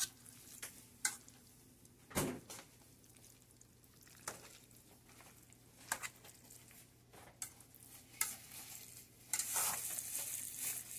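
A fork stirring spaghetti and ground-beef sauce in a metal pot, with scattered clicks and scrapes of the fork against the pot. A stretch of hissing comes near the end.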